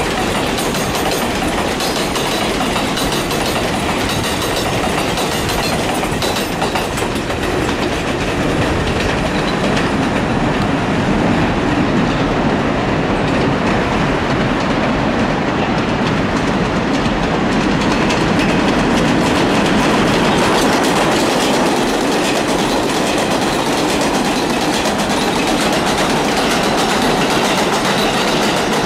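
New York City Subway R188 7 train running on the elevated steel track, its wheels clacking over the rail joints in a steady, loud rumble that grows a little louder midway.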